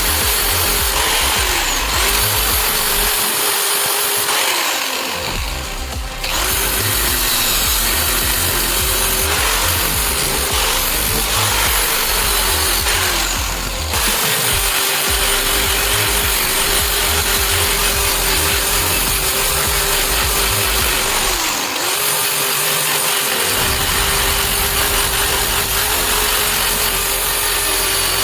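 Electric power tool motor running steadily while working, its hum sagging briefly in pitch several times as it is loaded.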